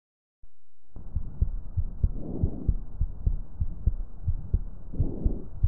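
Chest sounds heard through a stethoscope: a steady heartbeat of regular low thumps, with two soft breath sounds swelling about two and a half and five seconds in. It begins about half a second in.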